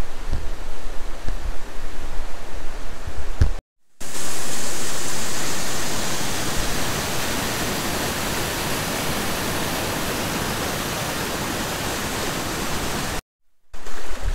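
Steady rushing of a creek and waterfall, with low rumbling in the first few seconds; the sound drops out completely twice, briefly, at cuts.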